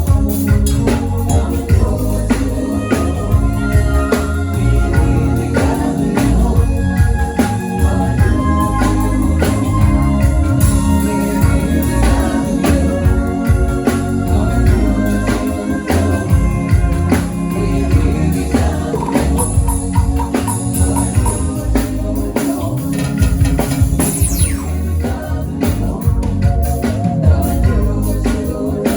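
Live band playing gospel music during a sound check, loud and heavy in the bass, with keyboard organ, drums and a singing voice at times.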